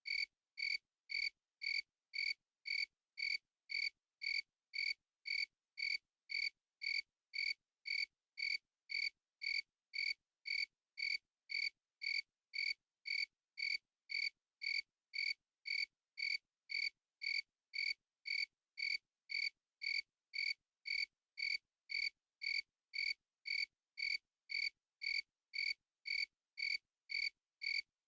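A cricket chirping: identical short, high-pitched chirps repeated at a perfectly even pace, a little under two a second, with silence between.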